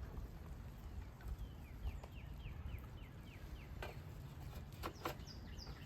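A songbird singing quick runs of short downward-sliding notes, about five a second, a higher run starting near the end, over a low outdoor rumble with a few sharp clicks.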